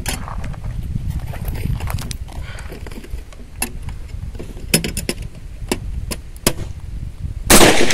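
A single loud shot from a US M1 carbine in .30 Carbine, fired near the end over a low rumble and a few scattered sharp clicks.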